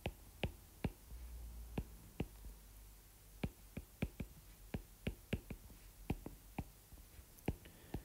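Stylus tip tapping and clicking on a tablet's glass screen during handwriting: faint, sharp, irregular clicks at about two a second.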